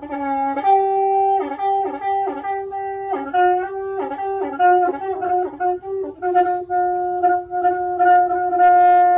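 Intro music: a melody of held and stepping notes on a pitched wind-like instrument, doubled an octave higher, with light high ticking percussion coming in about six seconds in.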